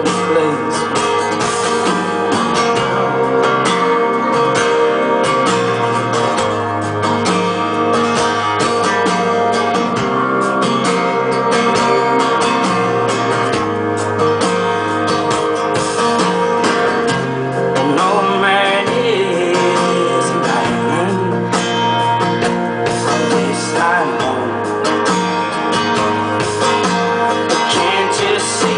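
Live folk music in an instrumental passage between sung lines, led by acoustic guitar, with a few sliding, wordless voice-like notes in the second half.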